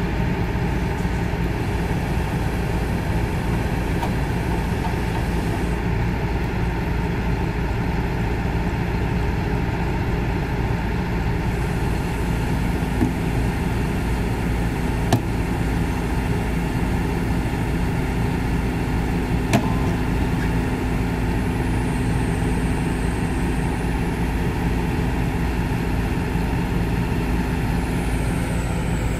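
Kobelco SK200 hydraulic excavator's diesel engine running steadily as it lifts a tandem roller on chains. A steady hum joins about twelve seconds in, and there are three sharp clicks.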